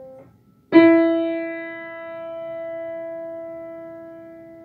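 A single Schimmel piano note, E above middle C (mi), struck about three-quarters of a second in and left to ring, slowly fading. Just before it, the ringing of the previous note (C) is damped off.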